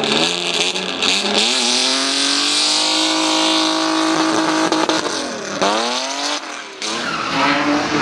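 BMW E34 race car's engine revving hard as it pulls away: the revs climb and hold high, drop sharply about five and a half seconds in, then rise again with a brief lift near the end. Tyres hiss and skid on the wet tarmac underneath.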